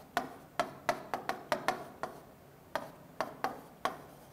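Marker pen writing on a whiteboard: a quick, uneven run of short taps and scrapes as letters are written, with a brief pause a little after the middle.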